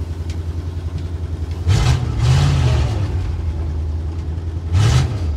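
1962 Ford C750 cabover's 332 Y-block V8 running under load in second gear, heard from the cab, revved up about two seconds in and again near the end. The brakes are sticking, one side not letting go, so the engine pulls against them.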